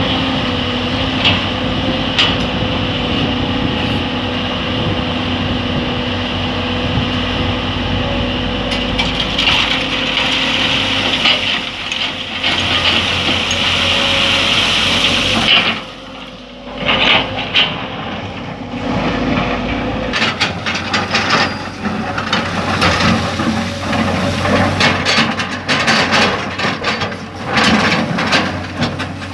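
Excavator's diesel engine running steadily under load, easing off briefly about halfway through. After that come many sharp clatters and knocks over the lower engine sound.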